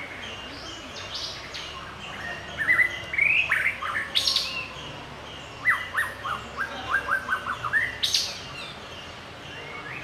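White-rumped shama singing in two phrases. The first, about two and a half seconds in, is a string of quick rising whistled notes ending in a sharp high note. The second, about five and a half seconds in, is a fast run of about ten repeated notes. Faint chirps carry on behind.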